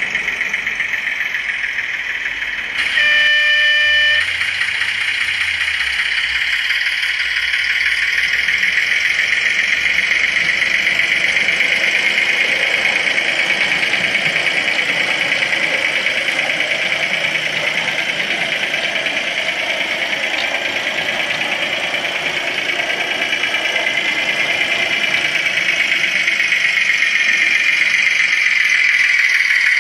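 Recorded diesel engine sound from the sound chip of a gauge 1 Märklin Köf model shunting locomotive, running steadily through the model's small 8-ohm speaker. About three seconds in there is a single horn blast lasting just over a second.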